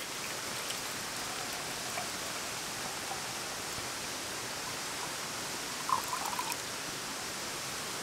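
Steady hiss of a gas camping stove burning under a metal pot of water, with water being poured into the pot, and a few faint clinks about six seconds in.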